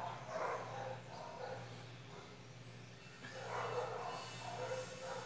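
A dog barking faintly, in short repeated barks that come in clusters, over a steady low hum.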